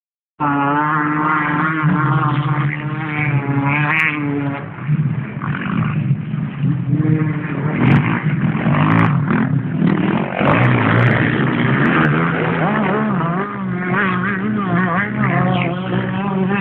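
Motocross dirt bikes racing past close by, engines revving up and down in pitch as they shift gears and pass one after another. A few sharp ticks come about halfway through.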